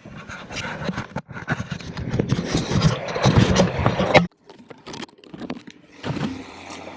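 Hand-tool and metal-part clatter: quick clicks, clinks and scraping, busiest from about one to four seconds in, cutting off abruptly just after four seconds and followed by scattered lighter clicks.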